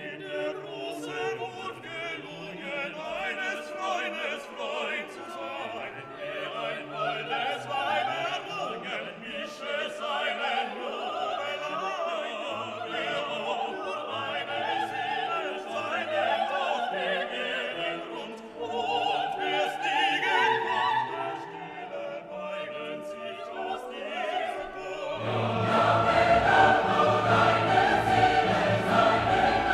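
Background classical music with operatic singing over an orchestra, growing louder and fuller, with a choir, about 25 seconds in.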